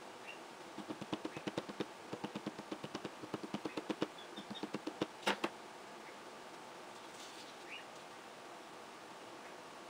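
An ink pad tapped quickly and repeatedly onto a plastic embossing folder to ink it, about six taps a second for several seconds, ending with a louder tap.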